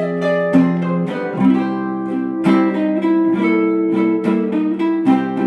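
Background music of plucked acoustic guitar, notes and chords picked every half second or so and left ringing.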